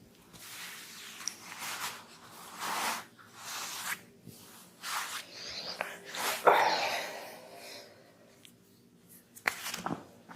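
Hands rubbing and slapping on skin during an oiled head massage: a run of uneven rubbing strokes with a few sharp slaps, the loudest about six and a half seconds in.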